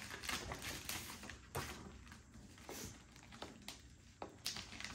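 Rustling and scattered light taps of paper and plastic packaging being handled.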